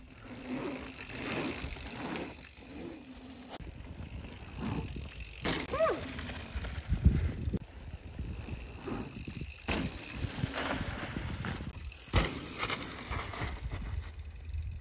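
Mountain bike being ridden over a dirt jump line: knobby tyres rolling and crunching on packed dirt, with a high freehub buzz in short spells while coasting. Two heavy thumps of the bike landing, about halfway through and again near the end.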